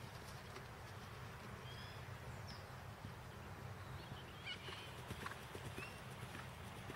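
Faint hoofbeats of a horse galloping over grass turf, with a few short high chirps over a steady low outdoor rumble.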